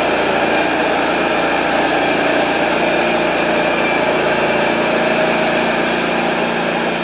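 TimberKing 1220 band sawmill's engine running steadily at speed with the band blade turning, the sawhead worked along a hemlock log.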